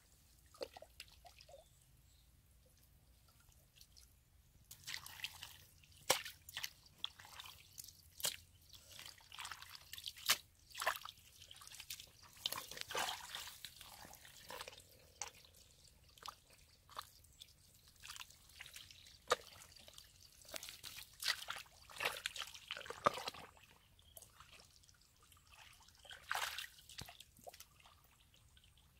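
Hands working through wet mud and shallow muddy water: irregular squelches, drips and small splashes, sparse for the first few seconds and then coming often.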